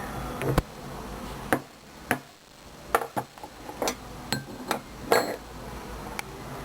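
Metal parts and hand tools from a microwave oven teardown knocking and clinking together: about ten sharp, irregular clicks and knocks, some ringing briefly. A steady hum underneath fades out about two seconds in.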